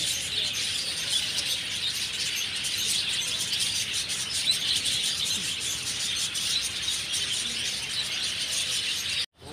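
A flock of caged budgerigars chattering, a dense, continuous mass of high twittering chirps. It cuts off suddenly near the end.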